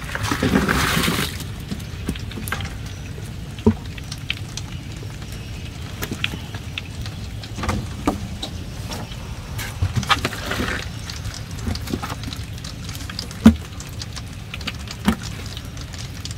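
Live shrimp and small fish, wet from the pond, being tipped and handled in a plastic basket and a foam box: a wet splashing pour about a second in and a weaker one near ten seconds, with scattered sharp knocks and clicks. A steady low rumble runs underneath.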